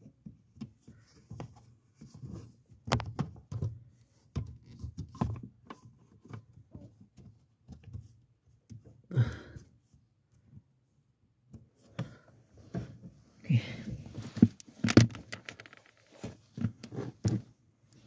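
Irregular clicks, taps and knocks of hands working small plastic and metal parts at the clutch pedal under the dashboard while fastening a cable tie, with a few sharper knocks about nine seconds in and again near the end.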